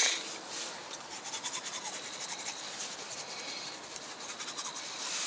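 Teeth being brushed with a toothbrush: rapid scrubbing strokes, after a short rustle or knock at the very start.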